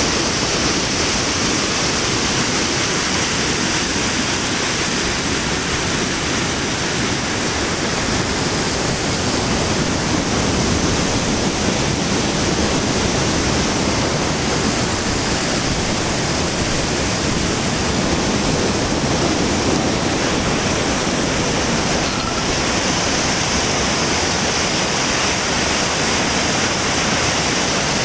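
Tiered waterfall: water rushing and splashing over rock, a loud, steady rush of noise.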